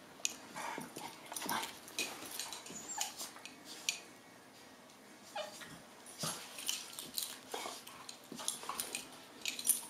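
Two dogs, an adult and a puppy, play-fighting: short yips and whimpers among scattered sharp clicks and scuffles of paws and mouths.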